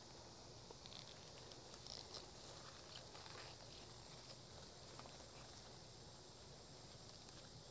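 Near silence: faint outdoor background with a steady high hiss and a few soft, scattered ticks.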